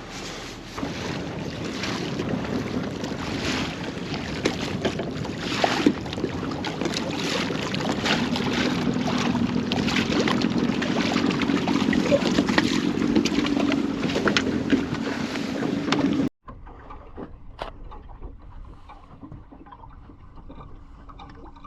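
Boat under way on the water: steady motor and water noise with wind buffeting the microphone. It cuts off abruptly about sixteen seconds in, leaving a much quieter stretch with a faint steady hum.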